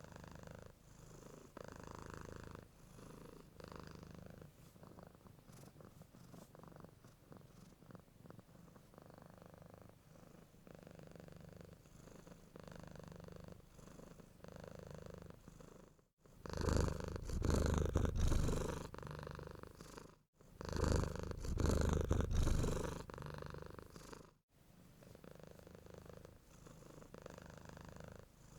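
Domestic cat purring, in soft pulses about once a second that follow its breathing. About halfway through, the purring turns much louder for roughly eight seconds, beginning and ending abruptly.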